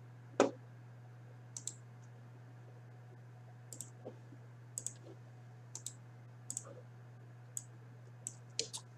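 Scattered light clicks at a computer, about a dozen spread over the seconds, with a soft thump about half a second in, over a steady low hum.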